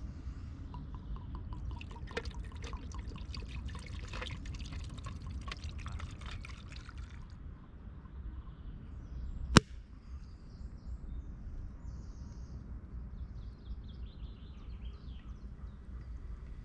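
Aperol poured over ice into a plastic jug for about seven seconds, the liquid splashing and trickling with small clicks of ice. About nine and a half seconds in comes a single sharp, loud pop as the Prosecco bottle is uncorked, and faint bird chirps follow.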